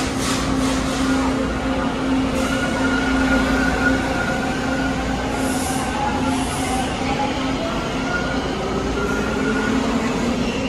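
TTC T1 subway trains moving through the station: a steady hum with whining tones that slowly slide up and down as the cars run along the rails. Two short hisses come a little past the middle.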